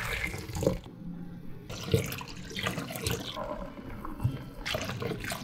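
Cider being poured from a can into a glass measuring cup, a splashing trickle of liquid, with a few light knocks.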